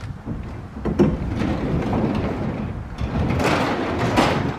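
Sectional overhead garage door being pushed up by hand, rumbling and rattling as it rolls up its tracks, after a single knock about a second in.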